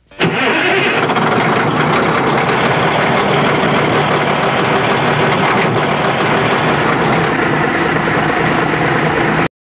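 Engine running steadily at a constant speed, coming in abruptly at the start and cutting off suddenly near the end.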